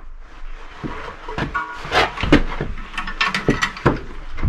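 Irregular knocks, clanks and rattles of hand tools and metal against a heavy wall-mounted electrical transformer while its lag bolts are being fastened into a plywood backing. A couple of short squeaks come about a third of the way in and again past the middle.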